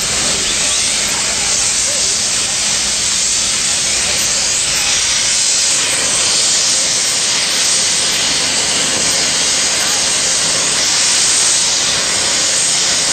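1904 Metropolitan Extra First Class steam fire engine pumping, with a steady, loud hiss of steam.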